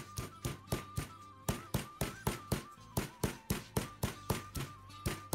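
Stone pestle pounding sliced lemongrass and galangal in a granite mortar, dull knocks at about four strikes a second, grinding the start of a Thai curry paste. Faint background music plays under the strikes.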